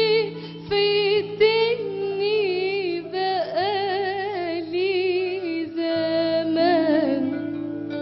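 A female voice singing an ornamented Arabic melody with wavering vibrato over sustained keyboard chords. Near the end the voice stops and plucked string notes come in.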